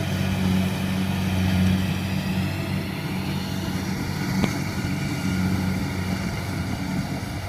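Kubota rice combine harvester's diesel engine and threshing machinery running steadily as it harvests standing rice, a constant low drone. A single sharp click about four and a half seconds in.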